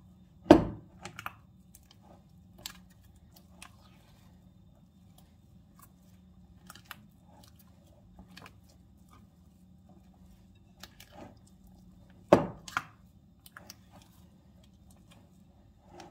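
Kitchen handling sounds from donut preparation: scattered light clicks and knocks over a faint steady low hum, with two louder knocks about half a second in and about twelve seconds in.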